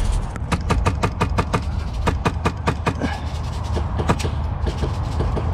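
Airsoft gunfire: a quick string of sharp cracks, about seven a second for two seconds, followed by a few single shots.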